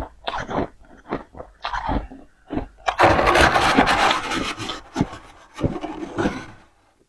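Powdery freezer frost being bitten and chewed in short crunches, then a loud rasping scrape-like crunch lasting about a second and a half around three seconds in, followed by a few more crunches.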